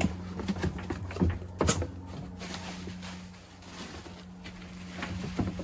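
Handling noises as a replacement part and its packaging are handled: a few sharp knocks and clicks and some rustling, over a steady low hum.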